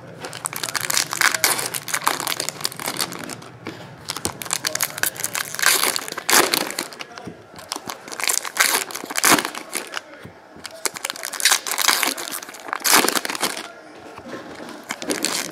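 Foil trading-card pack wrappers crinkling in irregular bursts as packs are handled and opened and the cards pulled out.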